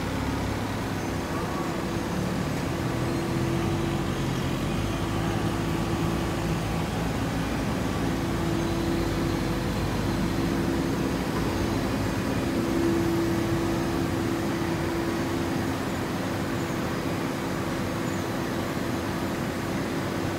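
Hydraulic baling press running, a steady mechanical hum with a held tone that swells slightly now and then.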